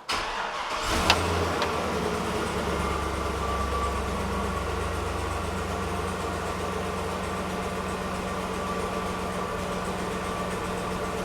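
The gasoline V8 of a 2003 Chevy Silverado 3500 is started: a brief crank, then it catches about a second in. It runs at a slightly raised cold idle for a few seconds and then settles into a steady idle. This is an engine that has a stored random multiple-cylinder misfire code.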